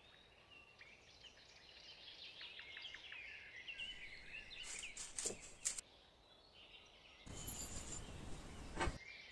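Small birds chirping and twittering in quick, high calls through the first several seconds, with a few light clicks in the middle. Near the end, granulated sugar poured from a small bowl into a glass bowl makes a hissing slide, then a sharp clink.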